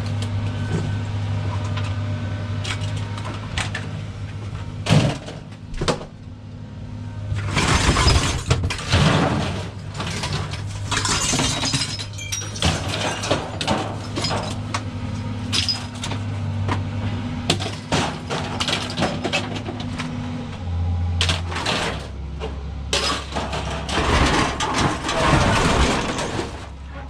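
Scrap being handled and tossed, with repeated metallic clanks and crashes over a steady vehicle engine idling. The engine's hum changes to a lower note about twenty seconds in.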